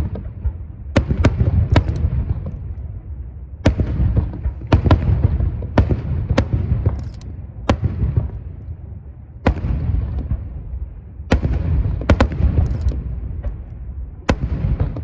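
Starmine barrage of aerial firework shells bursting: more than a dozen sharp bangs at irregular intervals, some in quick pairs, over a heavy low rumble that rolls on between them.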